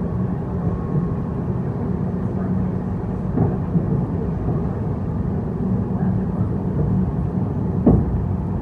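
ED4M electric multiple unit running along the line, a steady rumble of wheels on rail with two sharp wheel knocks over rail joints, the louder near the end.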